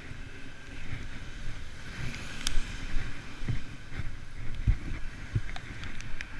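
Wind buffeting the microphone while riding a bicycle, with irregular low thumps over a steady hiss and a few sharp clicks in the second half.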